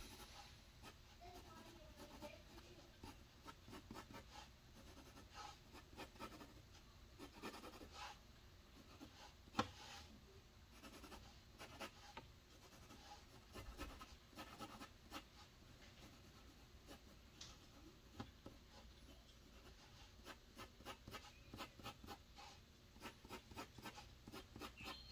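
Faint scratching of a drawing tool on a surface: many quick, short strokes in irregular runs, with one sharper tap about ten seconds in.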